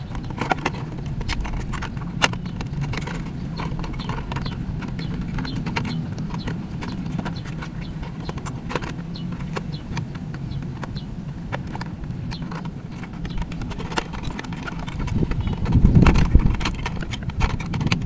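Irregular small plastic clicks and knocks from handling a WPL D12 RC pickup's plastic chassis while a battery pack is fitted into its battery compartment and the cover is worked, over a steady low rumble. The rumble swells briefly near the end.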